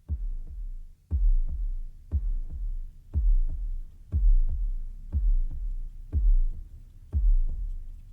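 Background music with a deep, heartbeat-like electronic beat: a low double thump about once a second.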